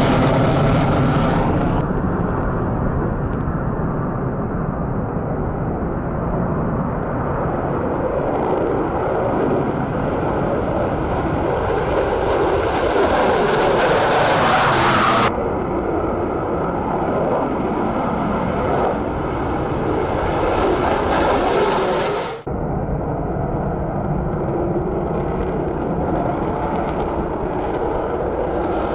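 Fighter jets taking off in afterburner: a loud, continuous jet noise with a falling pitch as an aircraft passes, and a hiss that builds as the next jet approaches. The sound changes abruptly three times, about 2, 15 and 22 seconds in, where separate takeoffs are spliced together.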